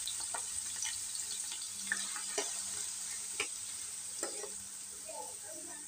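Raw potato cubes sizzling in hot oil in a metal kadai on high flame. The sizzle eases slightly, and a spoon clicks against the pan about five times as the cubes are stirred.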